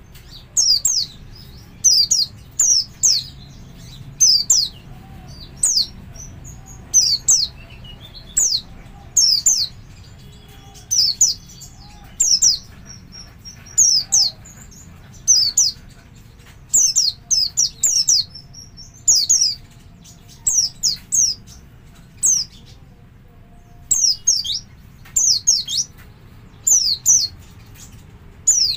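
White-eye (pleci) giving its double call: short, high chirps that slide downward, in quick pairs and triplets, repeated about every second.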